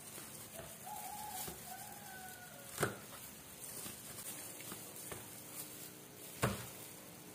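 Quiet kitchen handling: a plastic-gloved hand moving chillies off a plastic plate, with two sharp knocks about three seconds and six and a half seconds in. A faint whistling call sounds in the background during the first couple of seconds.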